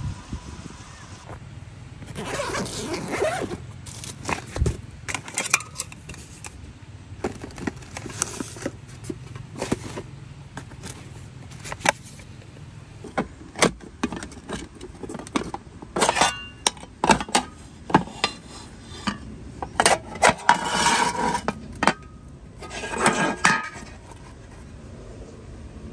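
Hard objects being handled and set down: irregular clicks, knocks and clinks, with a few short scraping passes.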